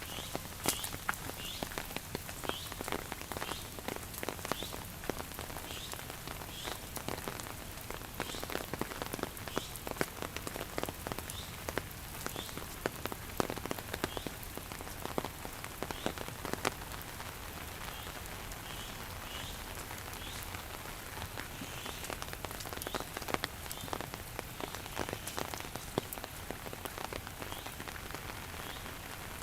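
Steady rain falling, with many heavy drops striking a surface in irregular sharp taps. A short high chirp repeats a little faster than once a second through much of it.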